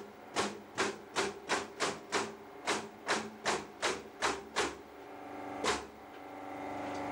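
Pneumatic coil nailer firing nails into pine wall panelling: about a dozen sharp shots in quick succession, roughly three a second, then a short pause and one more shot. A steady hum runs underneath and grows louder near the end.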